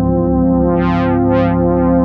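Yamaha MONTAGE M synthesizer holding a virtual-analog chord. Twice around the middle the tone brightens and dulls again in two short filter sweeps.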